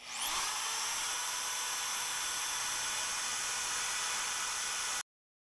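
Portable band saw motor spinning up with a quickly rising whine, then running steadily with a hissing noise and faint high tones; the sound cuts off suddenly about five seconds in.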